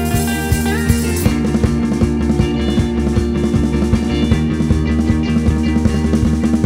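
Indie rock song in an instrumental passage with no singing: electric guitar, bass and drum kit playing a steady beat. About a second in the bright top end drops away and the band carries on with a fuller low end.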